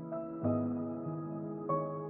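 Slow, soft new-age background music with sustained chords that change every second or so.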